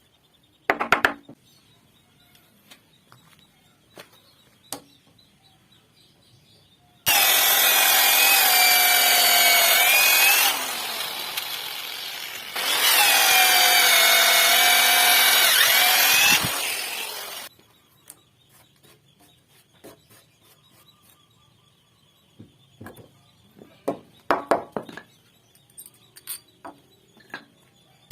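Electric hand power tool cutting into a wooden beam: the motor runs for about ten seconds, loud in two stretches with a lighter spell between, its whine dipping as the cut loads it. A few sharp wooden knocks come near the start and again near the end.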